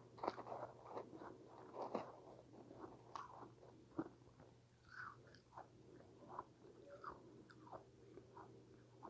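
A person chewing a mouthful of freezer frost, crunching close to the microphone. The crunches come thick for the first few seconds, then thin out to scattered soft crunches, over a steady low hum.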